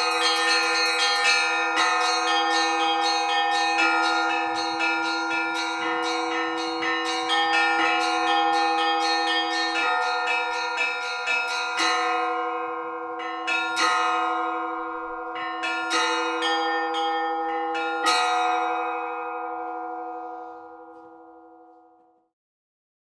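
Orthodox church bells rung by hand in a quick, dense peal. After about twelve seconds it thins to about four single strikes some two seconds apart, and the bells ring on and fade away as the peal ends.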